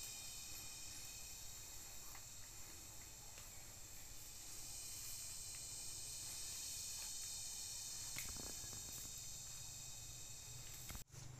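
Steady high-pitched insect chorus, a buzz of several stacked tones that grows louder about halfway through. A few soft rustles of someone walking through the undergrowth.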